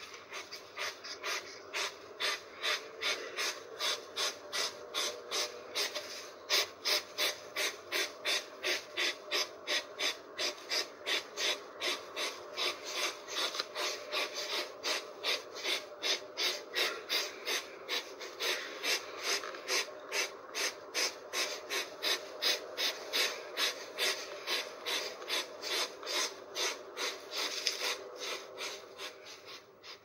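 Hedgehog snuffling: quick raspy puffs of breath through the nose, about three a second, fading near the end.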